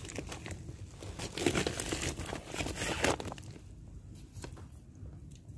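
Crinkling and rustling of something being handled, dense for about the first three seconds and then fading to scattered faint crackles.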